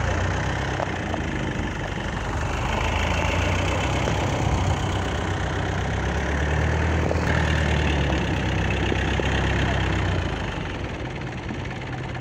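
A fishing boat's engine idling with a steady low throb, over the noise of choppy waves against the hull. The engine eases off a little near the end.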